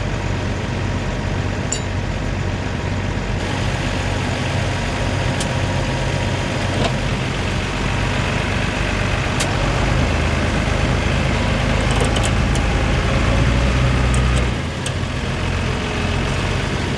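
Farm tractor's diesel engine running steadily, working harder and louder from about two-thirds of the way in, then easing off suddenly shortly before the end.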